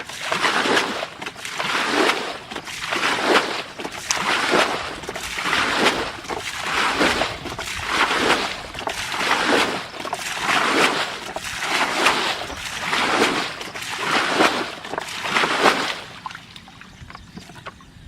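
Water sloshing and splashing in a steady rhythm of strokes, about one a second, that stops shortly before the end.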